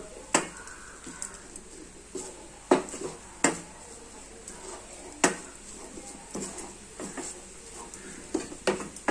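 Wooden spatula stirring and mashing anchovies and onions in a steel pan, knocking and scraping against the metal about eight times at irregular intervals, over a faint sizzle from the frying.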